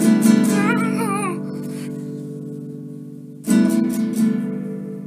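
Background music: acoustic guitar chords struck and left to ring out, with a second strum about three and a half seconds in. A brief wavering, falling note sounds over the first chord.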